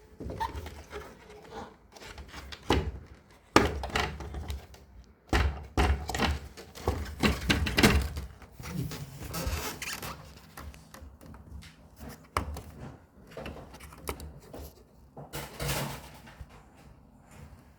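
Plastic front panel of an LG one-way mini system air conditioner being unhooked and taken off by hand: irregular plastic clicks, knocks and scraping, busiest for several seconds in the middle.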